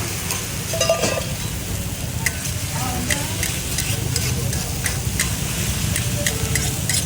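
Food sizzling on a hot pan while a metal utensil clinks and scrapes against it in quick, irregular strikes. There is a short ringing metal clang about a second in and a steady low rumble underneath.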